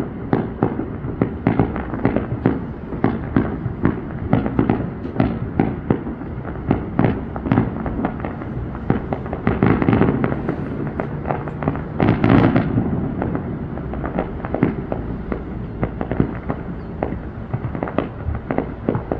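Fireworks display: a rapid, continuous string of bangs and pops, several a second, with louder booming bursts about ten and twelve seconds in.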